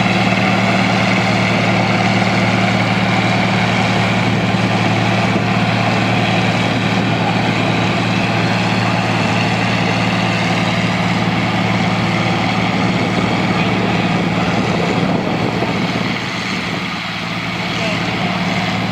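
Tractor engine running steadily at an even pitch, easing off slightly in level about sixteen seconds in.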